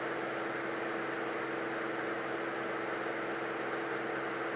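Steady in-flight drone of a Cirrus SR22's engine and propeller, heard faintly through the headset intercom as an even hiss with a steady low hum.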